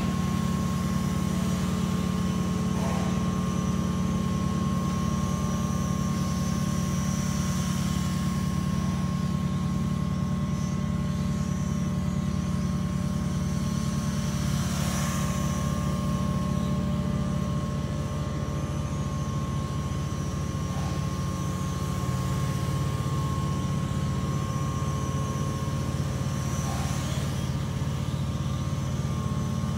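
Steady low mechanical hum of running engines or machinery, with faint steady higher-pitched whines above it; the pitch of the hum shifts slightly a few times.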